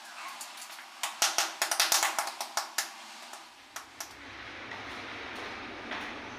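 A quick run of sharp clicks and light knocks, densest and loudest about a second in and thinning out by three seconds. After that, a low steady hum with faint hiss.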